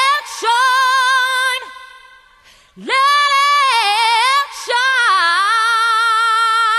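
Background music: a solo high female voice singing unaccompanied, long held notes that scoop up and waver in pitch. It breaks off for about a second near two seconds in, then resumes.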